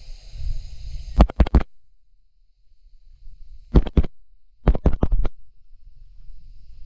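Three quick clusters of sharp clicks: about a second in, near four seconds, and around five seconds, each a handful of clicks in rapid succession. Wind rumbles on the microphone before and after them.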